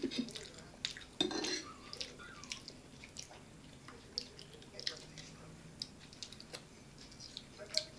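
Scattered light clicks of forks against plates and bowls as people eat, a few at a time.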